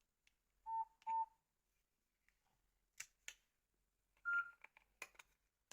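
Nokia 6303 classic keypad tones as the phone is switched off: two short beeps about a second in, then a higher single beep near the end, with a few faint clicks of keys between.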